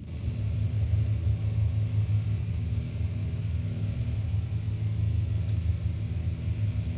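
Experimental noise music from analog synthesizers: a dense, low rumbling drone with hiss above it. It comes in at the start as two high steady tones cut off.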